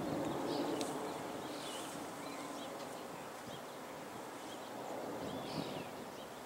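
Birds chirping now and then over a steady outdoor background hush. No club strike is heard.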